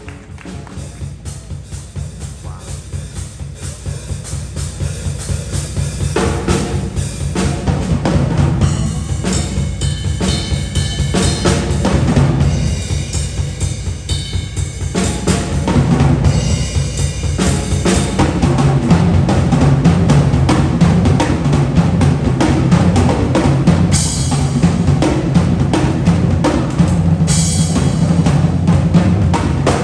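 A band playing, with drums to the fore: bass drum, snare and drum rolls over a heavy low end. It grows louder over the first several seconds.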